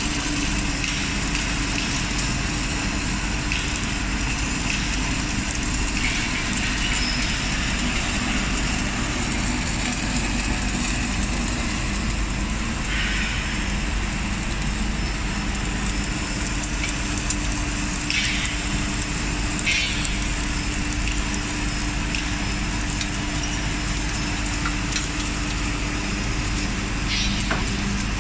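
CNC pole seam-welding machine running: a steady machine hum and noise, with a few short higher-pitched rasps now and then.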